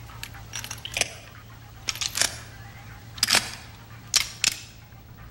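Revolver being handled and loaded: a series of sharp metallic clicks, some in close pairs, as cartridges go into the cylinder.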